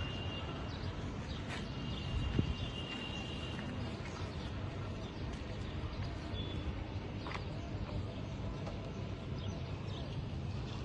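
Steady outdoor background noise, with wind on a phone's microphone, as it is carried along a rubbish-filled riverbank. A faint thin high tone comes and goes twice in the first few seconds, and there are a few small handling clicks.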